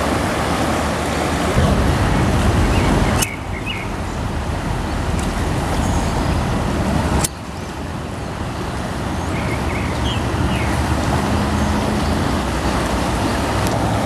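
Steady rushing roar of a river in spring flood, a continuous low rumble with hiss above it. The level drops suddenly twice, about three and seven seconds in.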